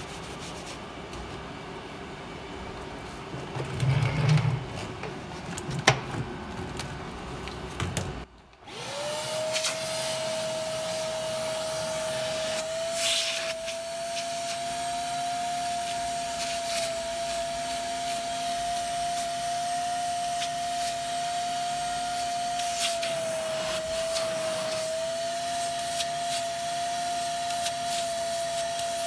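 A few knocks and handling noises, then about eight seconds in a vacuum cleaner starts and runs steadily with a high whine, its pitch dipping briefly now and then, as it sucks sprayed fabric cleaner back out of the car's cloth upholstery.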